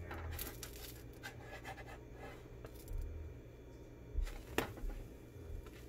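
A metal spatula scraping under a pancake on a nonstick frying pan, then two sharp knocks a little past four seconds in as the pancake is lifted and flipped.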